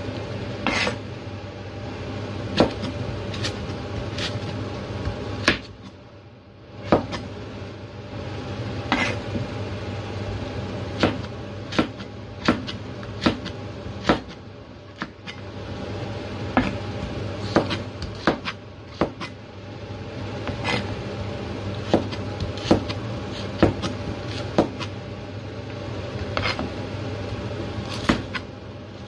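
Chinese cleaver slicing carrots into sticks on a cutting board: sharp knocks of the blade striking the board, roughly one a second, with a short pause about six seconds in.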